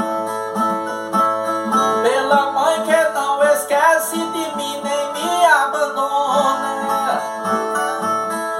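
Brazilian viola (the steel-strung ten-string folk guitar of repente) playing the instrumental interlude between sung stanzas: steadily ringing strummed strings, with a melodic phrase that bends in pitch from about two seconds in to near the end.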